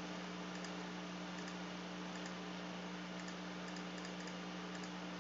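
Faint, scattered clicks of computer input on a desk, over a steady low hum.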